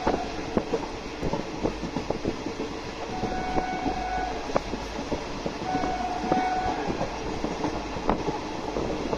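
Indian Railways train running, heard from on board: a steady rumble with irregular clicks and knocks of the wheels over the rail joints. Steady train-horn tones come three times: briefly at the start, then for about a second in the middle, and again about two-thirds through.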